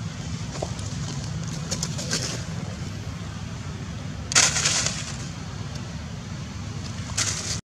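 Steady low outdoor background rumble, with a few short hissy crackles, the loudest about four and a half seconds in; the sound cuts out abruptly at the very end.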